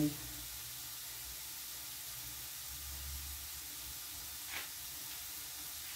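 Steady low sizzling hiss of food cooking on the stove: a pan of carrots frying for the zazharka and a pot of broth boiling hard. A single faint tap about four and a half seconds in.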